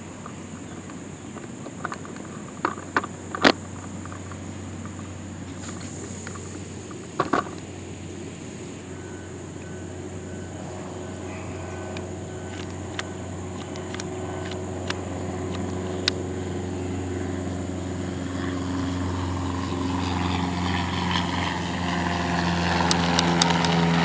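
A motor engine drone that comes in about halfway through and grows steadily louder as it approaches. Sharp metallic clicks of the rifle's action being worked sound a few times, several close together near the end.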